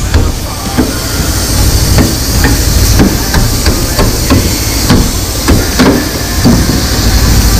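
Hammer striking the sheet-metal drive shaft tunnel in a truck cab floor: a dozen or so irregular metallic blows, roughly two a second, over a steady low hum.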